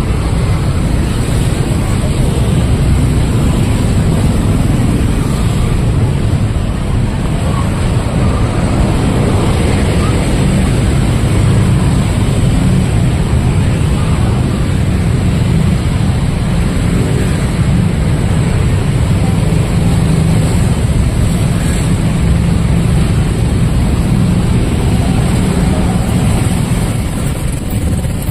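Busy street ambience: a steady low rumble of passing traffic, with voices mixed in.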